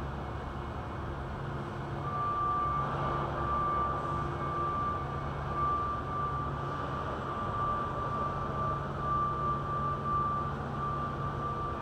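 Steady low drone of construction machinery running, with a thin, steady high whine that comes in about two seconds in and breaks off now and then.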